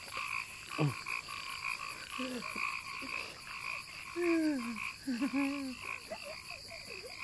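Night chorus of frogs croaking in steady, even pulses. A man's sobbing and whimpering breaks in a few times, loudest about four to six seconds in.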